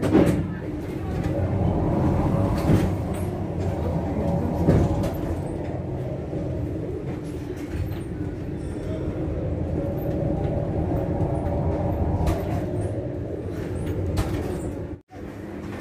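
Heritage street tram running along its rails, heard from inside the car: a steady low rumble of wheels on track with several knocks and rattles, and the sound briefly cutting out near the end.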